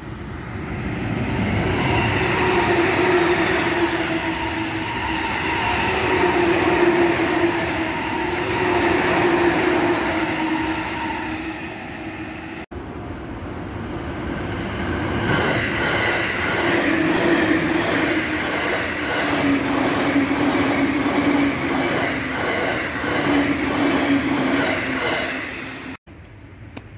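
Tokaido Line electric commuter trains passing at speed: a loud, steady rush of wheels and running gear with a hum that sinks slightly in pitch. After an abrupt cut about halfway through, another passing train with an even rhythm of wheel clicks over the rail joints.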